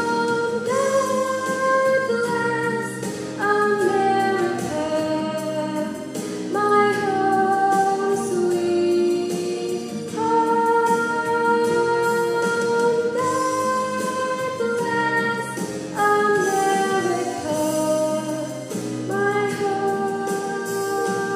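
A young woman singing a solo into a handheld microphone through a PA, holding long notes, with upright piano accompaniment.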